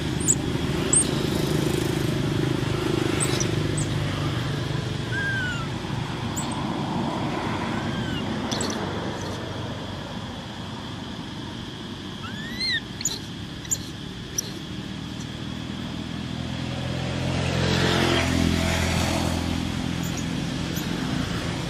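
Steady road-traffic rumble that swells as a vehicle passes near the end, with a few short, high squeaks.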